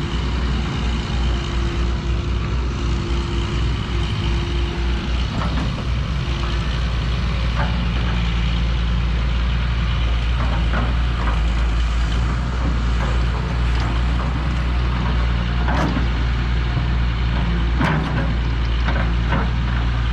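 Diesel engine of a backhoe excavator running steadily while it scrapes up and shifts hardened soil, with scattered knocks and scrapes from the bucket. A steady higher whine stops about five seconds in.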